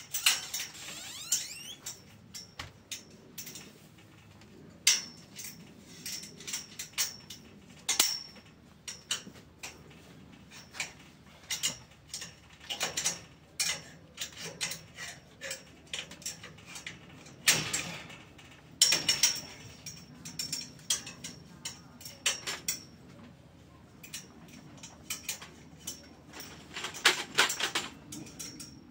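Hand tool clicking and tapping against the steel pipes of a greenhouse frame: irregular sharp metallic clicks and knocks, many ringing briefly in a high tone, coming thicker in clusters about two-thirds of the way through and near the end.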